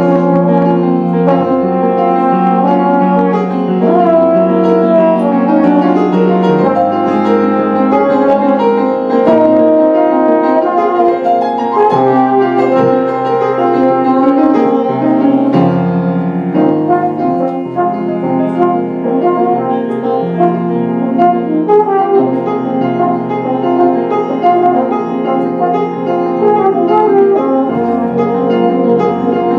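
Live improvised duet of trombone and piano: sustained trombone notes over held low piano bass notes and chords.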